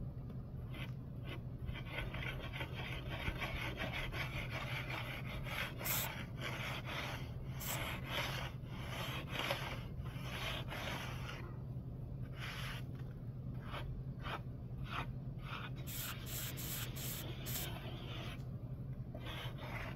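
Plastic hand float rubbing across a wet acrylic super fine stucco finish coat on a foam board, in many short strokes with a couple of brief pauses.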